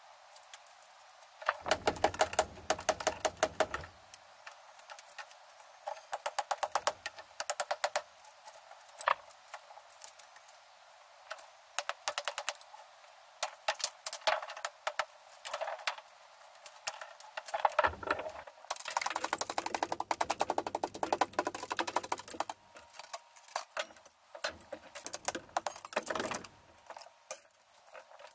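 Brickwork being chipped out with a chisel: bursts of rapid, sharp metallic taps and clinks on brick and mortar, with short pauses between bursts.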